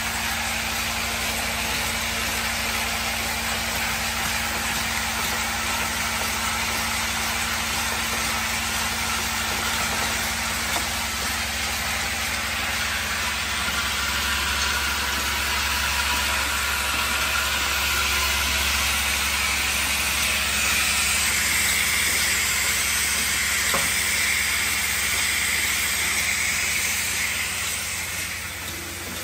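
Automatic push-pull cap assembly machine running: a steady, even mechanical noise with a constant low hum. The low hum comes up stronger about halfway through, as the vibratory bowl feeder of caps comes into the picture.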